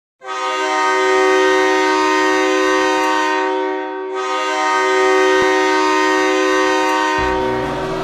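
Ice hockey goal horn sounding two long, steady blasts, each about three and a half seconds, a chord of tones like a train horn. Music begins near the end.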